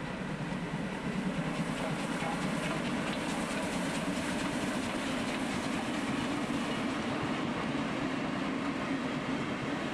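Steam train rolling past: the locomotive and its passenger coaches give a steady rumble with wheels clattering over the rail joints, growing a little louder about a second in and then holding.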